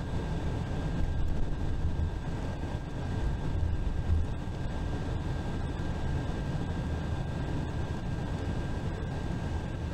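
Steady engine and road rumble heard from inside a bus cruising on the interstate, with a thin steady whine above it.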